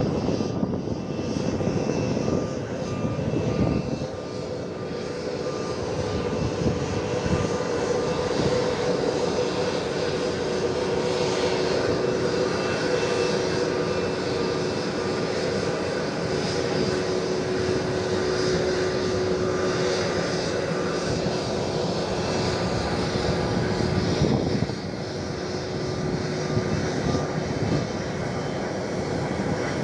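Airliner jet engines running at low taxi power: a steady rushing noise with a held whine, easing off briefly about four seconds in and again late on.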